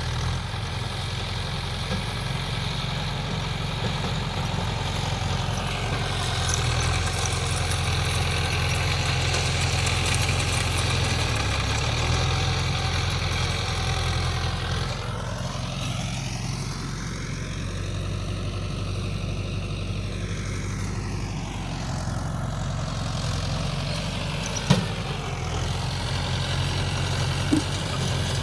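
Mahindra Yuvo 575 DI tractor's diesel engine running steadily while pulling a baler. Its tone sweeps hollowly through the middle stretch, and two short sharp knocks sound near the end.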